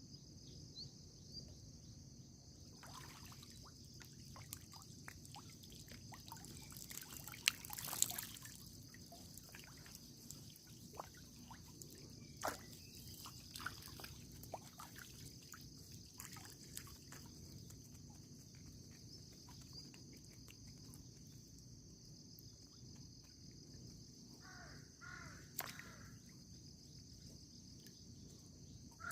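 Faint outdoor ambience: water dripping and trickling in scattered drops over a steady high-pitched hiss. A crow caws a few times near the end.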